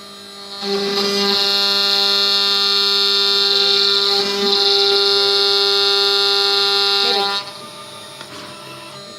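CNC router spindle milling a wooden Stratocaster body: a steady, high-pitched whine that gets much louder about half a second in, while the bit cuts, and falls back to a quieter whine near the end.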